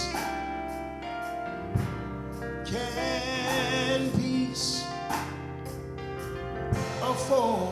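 Gospel hymn singing with instrumental accompaniment: a slow, drawn-out sung line with vibrato over sustained organ-like chords and guitar.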